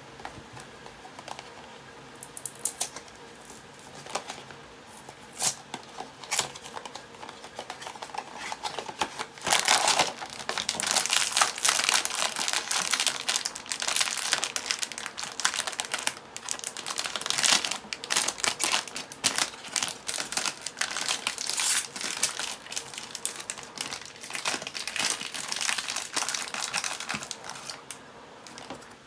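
A foil blind-bag wrapper being torn open and crinkled by hand, a dense crackling rustle that starts about ten seconds in. Before it there are a few scattered taps and rustles as a small cardboard box is handled.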